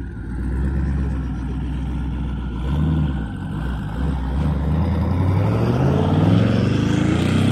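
Chevrolet Camaro's engine rumbling as the car pulls away, then revving up, its pitch rising steadily over the last couple of seconds.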